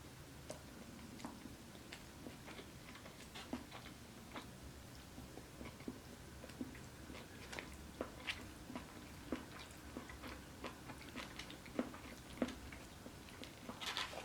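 Close-up mouth sounds of a person chewing food: irregular small wet clicks and smacks, fairly faint, with a busier cluster near the end.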